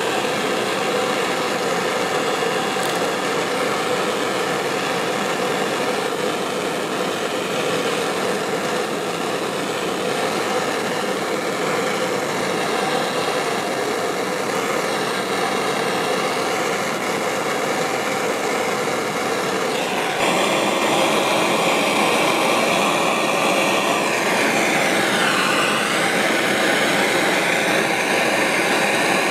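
Handheld gas torch flame hissing steadily while heating a steel fuel tank seam for lead-free soldering. About twenty seconds in it gets louder, and near the end its tone sweeps down and back up.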